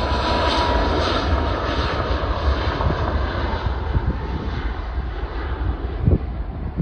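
Boeing 737 MAX 8's CFM LEAP-1B turbofan engines at takeoff thrust during the takeoff roll: a steady jet roar with heavy low rumble and a faint whine early on, slowly fading as the aircraft accelerates away down the runway. A short thump comes about six seconds in.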